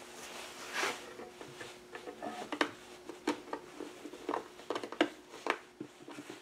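Irregular light clicks and taps of a metal hand tool working on the plastic rear handle of a Husqvarna 572XP chainsaw, about a dozen in all, over a faint steady hum.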